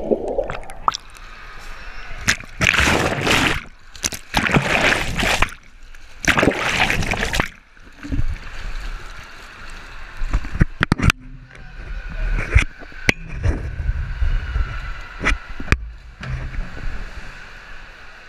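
Swimming-pool water heard through a handheld action camera: muffled underwater sound at the start, then several loud bursts of splashing as the swimmer surfaces. After that comes quieter sloshing at the pool edge with scattered sharp knocks.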